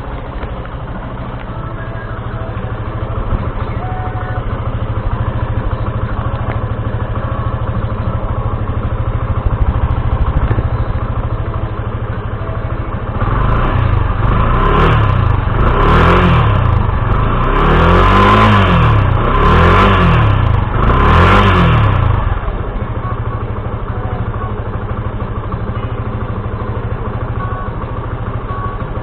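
Yamaha FZi (2016) single-cylinder motorcycle engine idling through its stock muffler, then blipped through about five quick revs, each rising and falling, about halfway through, before settling back to idle.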